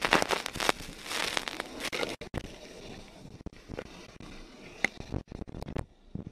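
Crackling, rustling handling noise on a handheld phone's microphone with many sharp clicks, loudest in the first two seconds and thinning to scattered clicks after.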